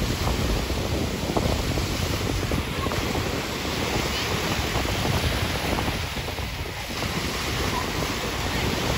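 Ocean surf washing and breaking in the shallows, with wind buffeting the microphone.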